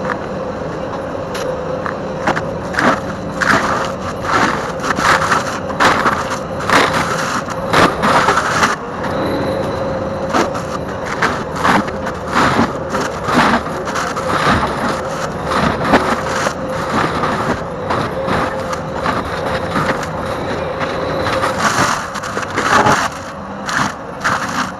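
Forestry mulcher on a Bobcat T770 tracked skid steer running steadily while its drum grinds wood, with frequent irregular cracking and splintering.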